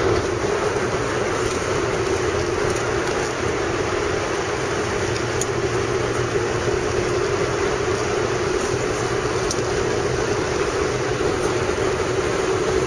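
Steady road and engine noise heard inside a car's cabin while driving through a road tunnel, with a constant drone.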